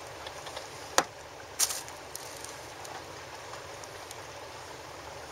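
Fishing tackle being handled: one sharp click about a second in, then a brief swish, over a steady background hiss.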